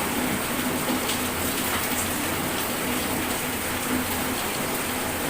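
Heavy rain falling: a loud, steady hiss with no let-up.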